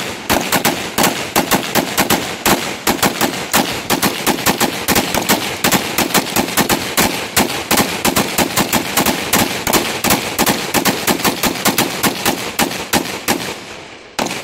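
Several AR-15 rifles firing together in a rapid, uneven stream of shots, several a second and often overlapping. The firing stops shortly before the end, with one last shot after it.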